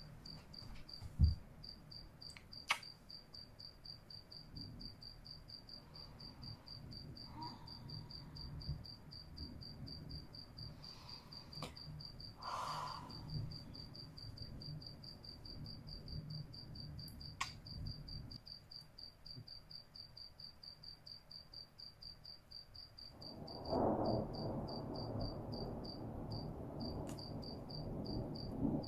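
A cricket chirping steadily in high, rapid, even pulses. A louder rushing noise comes in about five seconds before the end.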